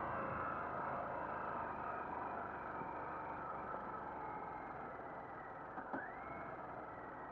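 Harley-Davidson Sportster's V-twin engine running with wind noise as the bike rolls slowly, the sound easing off gradually. A sharp click about six seconds in, followed by a short rising tone.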